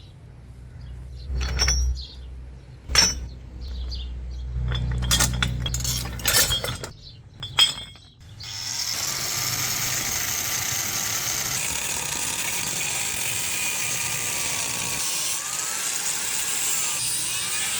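Workshop metalwork: several sharp clinks and knocks over a low rumble in the first half, then from about eight seconds in a steady hissing machine noise.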